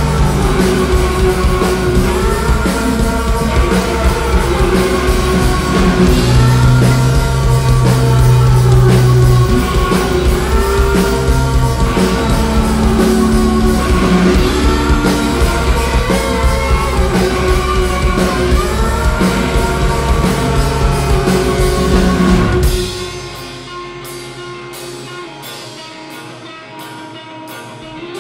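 Live rock band playing loudly, with electric guitar, bass and drums. About 23 seconds in, the full band cuts out suddenly, leaving an electric guitar picking quietly on its own.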